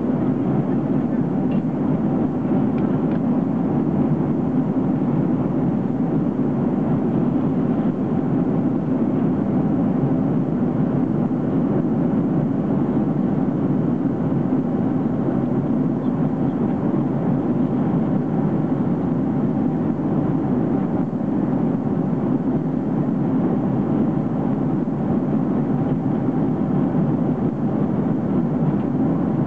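Steady cabin noise inside a Boeing 767-300 airliner in flight: the even, low rush of airflow and engines, unchanging throughout.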